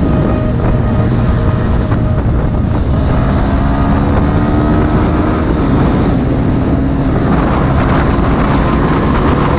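CFMoto NK 250's single-cylinder engine running at road speed, with wind noise on the microphone. Its note shifts about halfway through and then holds steady.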